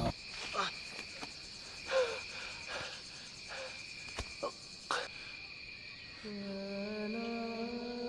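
Night jungle ambience: a steady high insect trill like crickets, with scattered short gliding animal calls and a few sharp clicks. About six seconds in, a low sustained musical note enters and steps up slightly.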